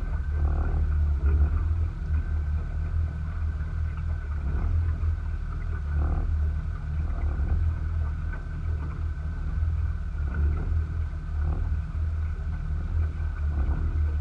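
Small kicker outboard motor running steadily at trolling speed, a continuous low rumble, mixed with wind buffeting the microphone.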